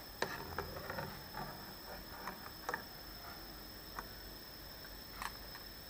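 A few scattered light clicks and taps of a skimmer against the pan and plate as deep-fried quail eggs are scooped out of the oil.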